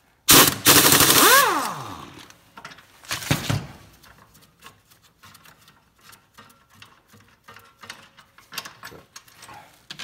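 Impact wrench hammering loose a rear drum brake backing-plate bolt in one burst of about a second, its motor whining down as the trigger is released, then a second short burst about three seconds in. Faint clicks of the bolt and parts being handled follow.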